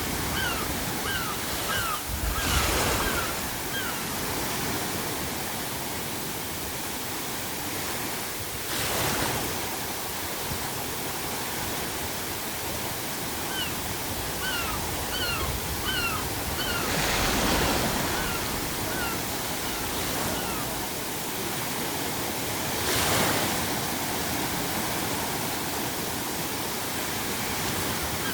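Ocean waves surging and breaking four times over a steady pink-noise hiss. Seagulls call in runs of short, quick cries near the start, again through the middle, and once more near the end.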